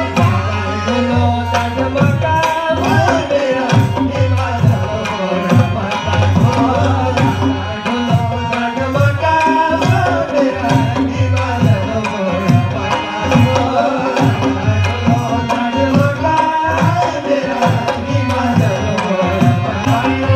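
Live Indian folk dance music: hand drums beat a steady rhythm under a melody line.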